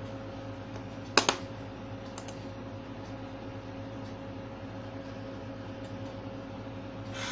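A sharp click about a second in, then a couple of faint clicks, over a steady low hum.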